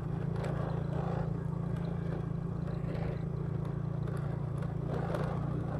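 A vehicle engine running at a steady, even speed while travelling, with a few brief rushes of noise over it.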